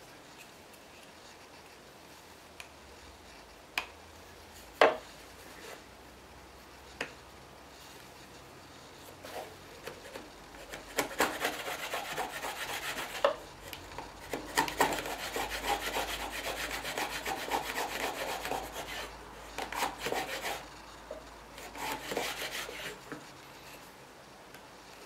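Shop-built wooden hand router plane cut across a wooden board, its blade scraping and shaving the wood in stretches of strokes with short pauses through the second half. Before that come three single sharp knocks.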